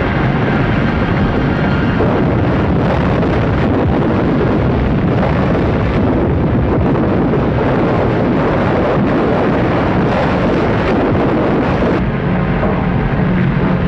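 Rockslide: a long, loud, steady rumble of rocks and earth crashing down.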